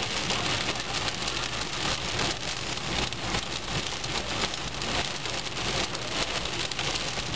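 Heavy cloudburst rain pelting the car's roof and windshield, a dense, unbroken patter heard from inside the car.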